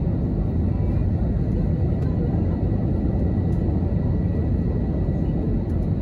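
Steady low rumble of a twin-jet airliner's engines and rushing air heard inside the cabin during the climb after takeoff, with a faint high steady whine.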